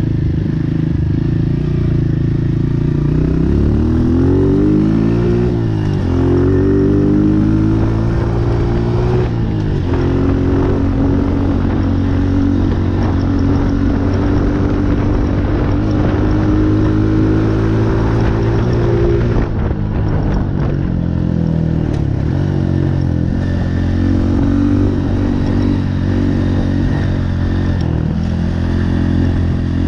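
Honda CRF125F big-wheel dirt bike's single-cylinder four-stroke engine running under way, its revs climbing and falling again and again as it is ridden, with a sudden drop in revs about twenty seconds in.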